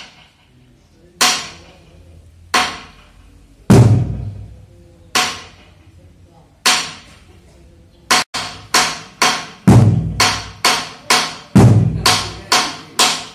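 A drum beating a dance rhythm: slow single strikes about every second and a half, some deep and some lighter, then about eight seconds in the beat quickens to roughly three strikes a second with deep strikes among them.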